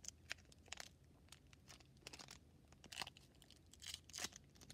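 Faint crinkling of a plastic candy wrapper being handled, a scatter of small crackles with louder rustles about two, three and four seconds in.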